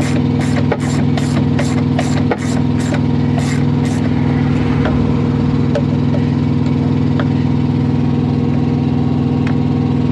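An engine idling steadily, with a socket ratchet clicking in quick regular strokes over the first few seconds as it backs off a nut. After that there are only a few scattered clicks.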